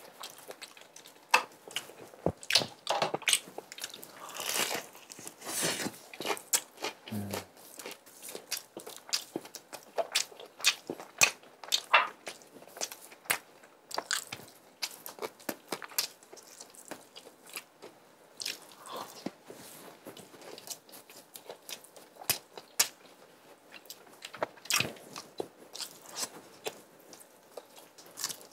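Crisp, close-up crunching of fried chicken coating being bitten and chewed: a dense run of sharp, irregular crackles all through.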